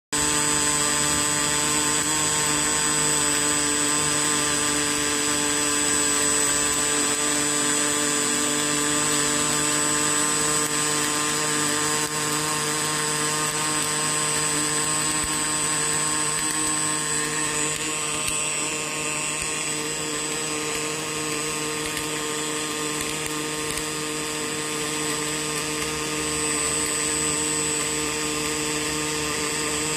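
Pulsed MIG welding arc in an automated, laser-seam-tracked welding run: a loud, steady buzzing with several fixed whining tones. The tone shifts slightly about eighteen seconds in.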